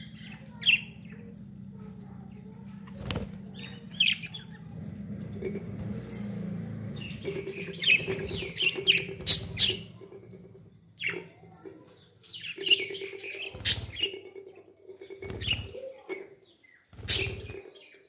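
Budgerigars chirping in irregular bursts, with wing flutters and sharp clicks from the cage. A steady low hum sits under the first half.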